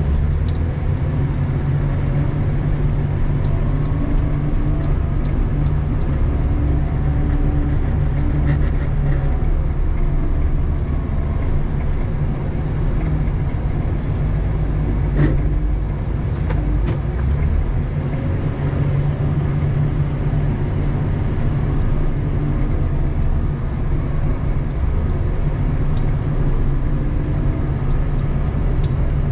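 Doosan DL250 wheel loader's diesel engine running steadily, heard from inside the cab, its pitch rising and falling as it works. A couple of sharp clicks about halfway through.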